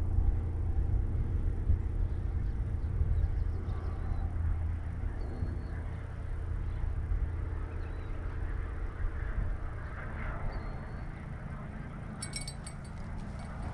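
Steady low rumble with a constant motor-like hum, a few faint high bird chirps, and a brief patter of rapid clicks near the end.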